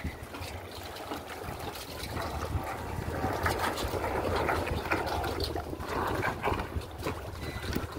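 Water sloshing and lapping against a dock as a radio-controlled tugboat pulls alongside, with wind buffeting the microphone. The splashing swells through the middle.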